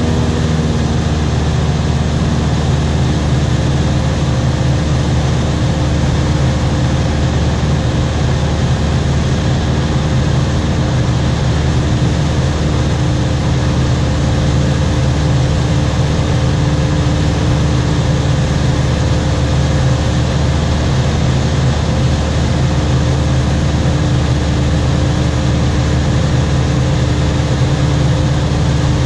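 Steady cabin drone of a light high-wing aircraft in flight: the piston engine and propeller's low hum under a constant rush of airflow, heard from inside the cabin. A couple of higher humming tones fade out about a second in.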